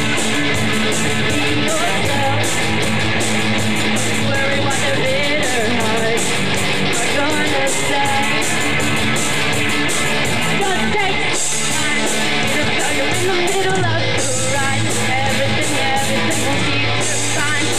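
Live rock band playing: guitars over bass and a drum kit, with cymbals struck in a steady, even rhythm.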